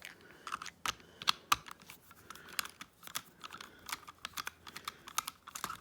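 Hands fiddling with an RC truck's plastic parts and the wiring of its LED underglow kit: a run of irregular small clicks and taps, like typing.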